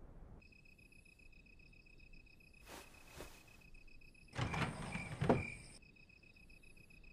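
Crickets chirping steadily in a pulsing, high trill. A wooden door slides briefly about three seconds in, then slides again more loudly for about a second and a half around the middle.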